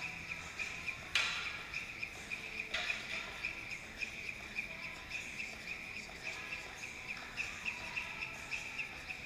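Skipping rope turning fast and ticking on a rubber gym floor in an even rhythm of about three strikes a second, with two louder slaps in the first few seconds.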